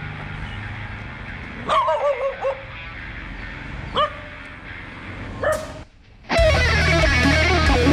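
Dogs barking: a quick run of several barks about two seconds in, then single barks about four and five and a half seconds in. The sound drops out briefly near six seconds, and electric-guitar music starts.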